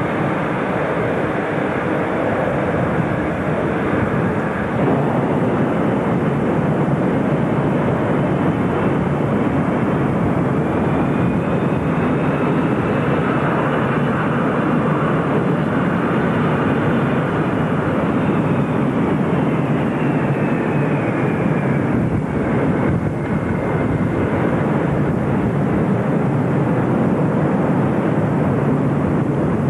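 Four-engined jet airliners' engines running on the ground, a loud, steady rumble. Over it a high turbine whine rises, then slowly falls in pitch over roughly the middle of the stretch.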